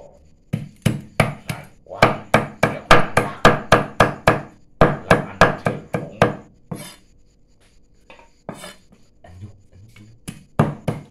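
Long knife chopping buffalo meat on a thick round wooden chopping board: a fast run of strikes, about three a second, that stops for a few seconds after about seven seconds and starts again near the end.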